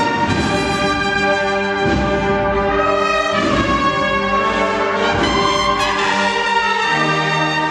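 Spanish Holy Week agrupación musical (cornets, trumpets and trombones over drums) playing a procession march. The brass holds full chords over drum strokes, moving to a lower held chord near the end.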